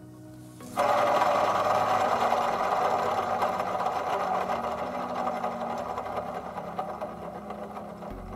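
Kubota diesel engine running with a rapid, dense mechanical clatter. It comes in abruptly about a second in and slowly gets quieter.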